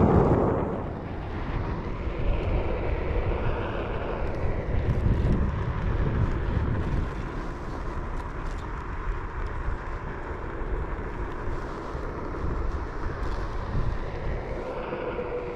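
Steady low rumble of something moving, with a faint steady whine. It is loudest in the first second.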